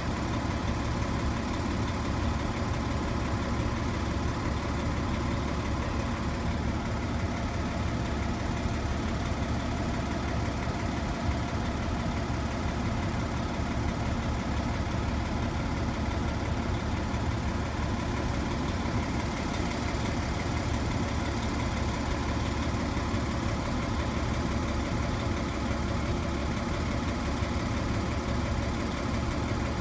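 Large vehicle engine idling steadily, most likely the emergency apparatus parked at the crash scene.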